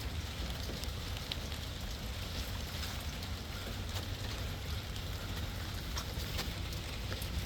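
Steady rain falling, with many small drop ticks scattered through an even hiss over a steady low rumble.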